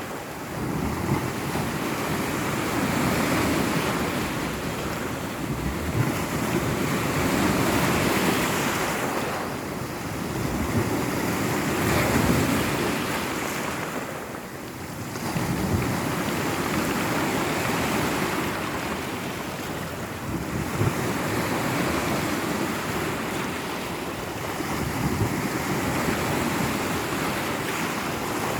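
Sea surf washing on the shore, swelling and easing every few seconds, with wind buffeting the microphone.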